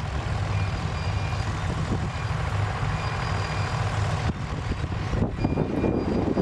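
Tractor engine running steadily under load, a deep, even hum, with faint short high-pitched tones repeating over it.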